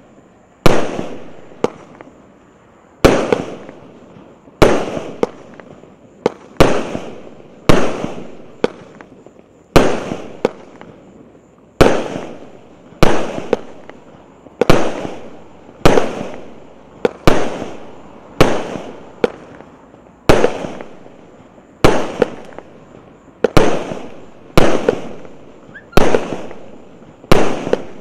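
A 49-shot, 0.8-inch consumer fireworks cake firing in a steady sequence. Sharp reports come about once every second and a bit, each dying away in a short fading tail, with smaller pops between some of them.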